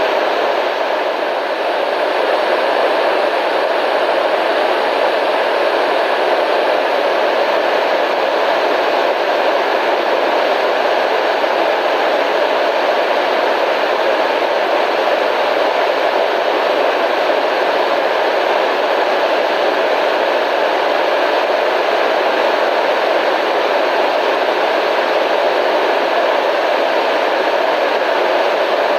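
Steady radio static: a constant hiss of white noise, strongest in the middle range, with no change in level.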